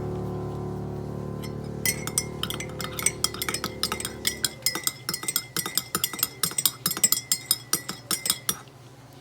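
A spoon stirring tea and clinking repeatedly against the sides of a cup, with several quick, irregular clinks a second. It starts about two seconds in and stops shortly before the end, while background music fades out.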